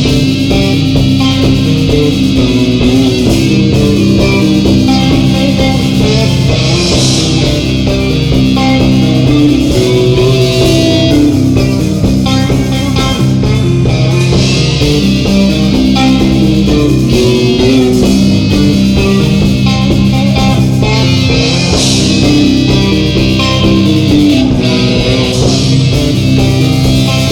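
Live stoner rock band playing an instrumental passage: electric guitar and bass guitar riff over a drum kit, loud and steady.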